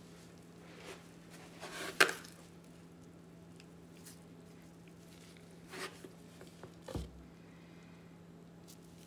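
Utensils being handled at a glass measuring cup as dry ingredients go into the batter: a sharp clink near two seconds in, a short scrape near six seconds and a soft thump near seven, over a steady low hum.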